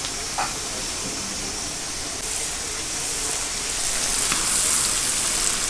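Chopped onions sizzling in smoking-hot mustard oil in a large kadhai, a steady hiss that grows a little louder in the second half.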